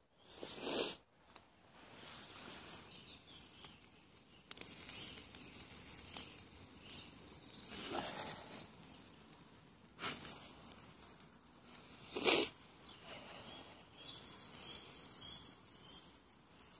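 Bacon sizzling on a wire grill over a wood campfire, a steady hiss. Four short, loud rushes of noise stand out: one about a second in and three more in the second half.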